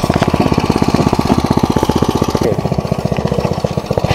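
Clark go-kart's small engine running, with a rapid, even beat of firing pulses that dips slightly about two and a half seconds in as the kart pulls away.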